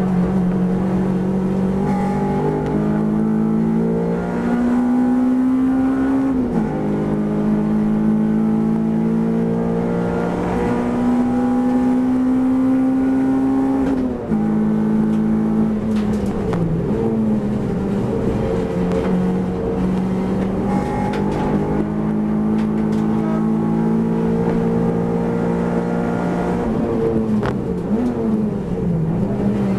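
Honda Civic race car's four-cylinder engine heard from inside the cabin at full race pace, climbing in pitch under full throttle with upshifts about six and a half and fourteen seconds in, then falling and dipping under braking and downshifts around seventeen and again near the end.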